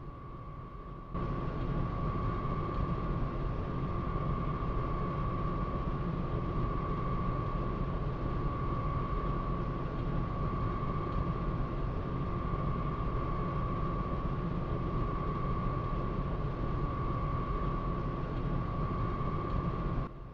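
A steady rumbling noise drone with a high humming tone that swells and fades about every two seconds. It starts abruptly about a second in and cuts off just before the end.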